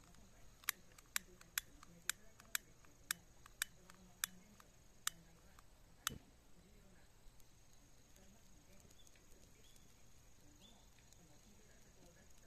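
Long-nosed gas lighter's trigger clicking repeatedly, about nine sharp clicks roughly two a second, as it is sparked at newspaper under a heap of weeds to start a fire. A single duller knock follows about six seconds in.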